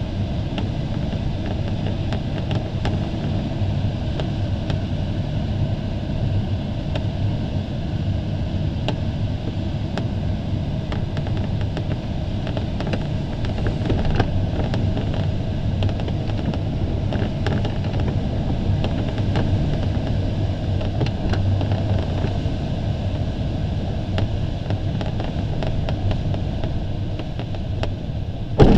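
Steady rush of airflow around the canopy of an LS-4a sailplane, heard inside the cockpit, with a low rumble and scattered small ticks and rattles. The glider is on its approach to land.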